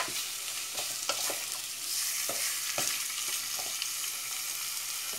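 Diced tilapia sizzling in a hot pot while a wooden spoon stirs it, with a steady frying hiss and irregular knocks and scrapes of the spoon against the pan.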